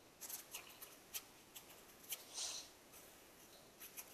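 Felt-tip marker writing on paper: faint, short scratchy strokes, with one longer stroke about two and a half seconds in.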